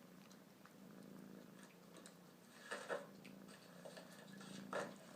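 Kitten purring faintly and steadily, with a few soft clicks about three seconds in and again near the end.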